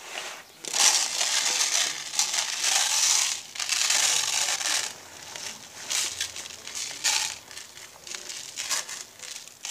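Granular mineral cat litter poured from a plastic bag into a cut-open plastic bottle: a steady gritty hiss from about half a second in to about five seconds, then a few shorter pours, with the plastic bag crinkling.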